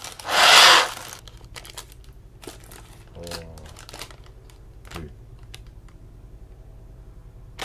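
A strong puff of breath blown into the hole of a pufferfish-shaped paper balloon (kamifusen), inflating it. Light crinkles and taps of the stiff paper follow as the balloon is turned in the hands.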